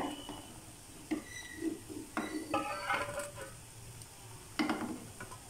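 A perforated steel skimmer knocking and scraping against a frying pan and a steel colander as fried snacks are lifted out of the oil: a few scattered short clinks and scrapes, the clearest about two seconds in and again near the end.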